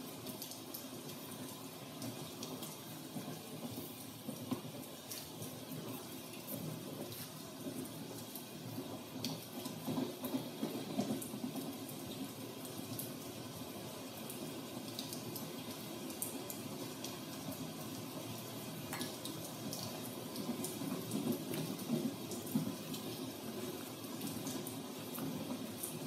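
Steady rain falling, with scattered drop ticks, mixed with the low rumble of a train ride.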